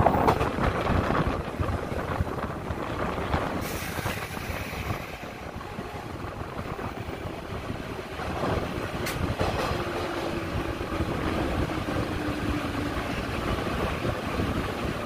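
JNR 185 series electric train running on the rails, heard through an open window with the rush of air. The running noise eases a few seconds in as the train pulls into the station. A faint steady tone sounds from about ten seconds in.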